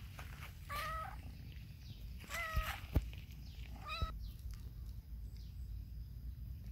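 A cat meowing three times, short calls about a second and a half apart, with a single sharp knock between the second and third.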